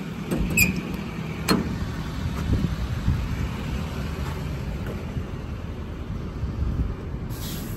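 Steady low vehicle rumble with a single sharp click about a second and a half in.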